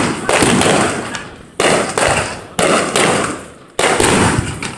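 Fireworks display: aerial shells bursting, with three sharp bangs about a second apart, each followed by a long fading echo.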